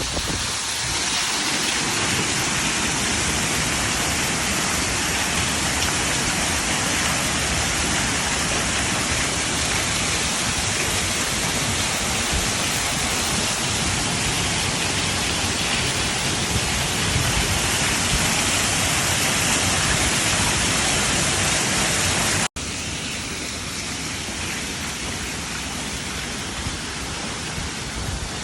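Waterfall's water rushing in a steady, loud roar of spray and falling water. About three-quarters of the way through it cuts out for an instant and comes back a little quieter.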